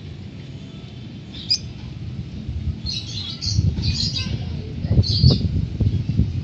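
African lovebirds giving short, shrill chirps and squawks in scattered bursts, a cluster of them a few seconds in. Under them runs a low rumble that swells toward the end and is loudest about five seconds in.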